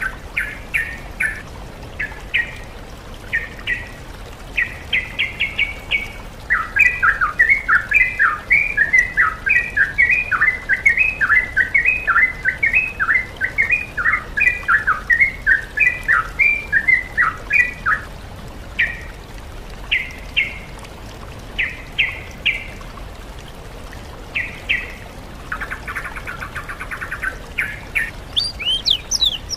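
Recorded songbird song from a sooty-headed bulbul (trucukan) track mixed with oriental magpie-robin and greater green leafbird, as played to train cage birds. Short groups of chirps open it, then comes a long run of quick, falling chirps, then spaced short notes, a buzzy rattle near the end and a burst of higher sweeping whistles at the very end.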